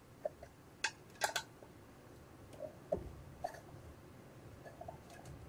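Faint, scattered metallic clicks and taps of a hex key working the screws of a 3D printer's Z-axis bearing block, a handful in all, the sharpest about a second in.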